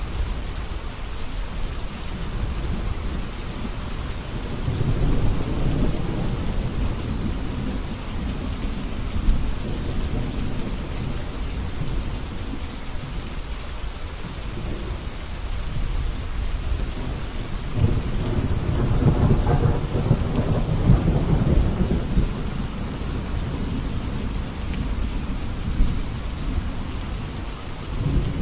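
Steady heavy rain, with thunder rumbling low twice: once about five seconds in, and again in a longer roll two-thirds of the way through.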